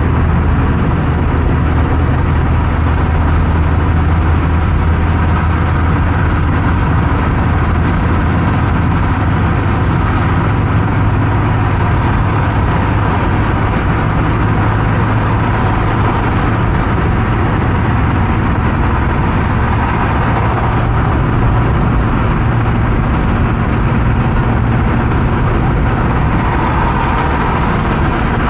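Car driving on a highway: steady engine and tyre noise with a low drone, which steps up slightly in pitch about ten seconds in.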